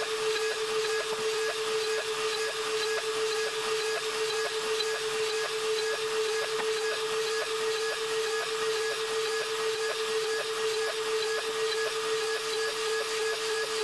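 A Mafell FM 1000 router motor, the spindle of a DIY CNC router, running with a steady high whine while its end mill cuts aluminium plate. A hiss and a light ticking of about two or three a second run along with it.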